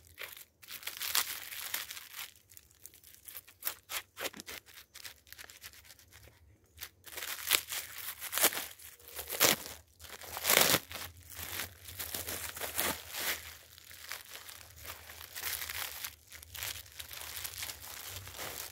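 Black plastic bag crinkling and tearing as it is pulled off a wrapped object, in irregular rustling bursts.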